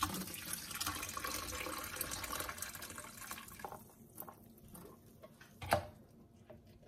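Kitchen tap water running for about three and a half seconds, then turned off. Near the end comes one sharp click as a hand-held can opener bites into the lid of a tin.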